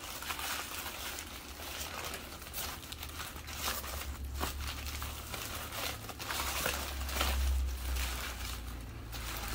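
Crumpled packing paper crinkling and rustling as it is unwrapped from around a large amethyst crystal, in irregular bursts. A low rumble joins in from about three seconds in and is strongest near the end.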